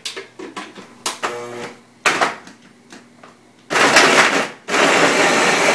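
Ninja blender: a few plastic clicks and knocks as the lid and motor head are set on, then the motor starts a little past halfway, running in a short pulse and then steadily, blending a thick frozen-fruit shake.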